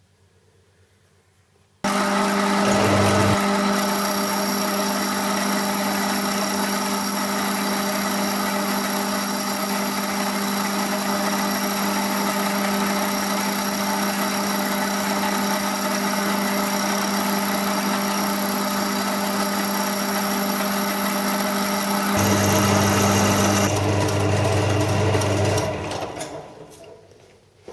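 Metal lathe switched on, its motor running steadily with a whine while taking a cut of about 15 thou. About three-quarters through the note changes, then the machine is switched off and winds down.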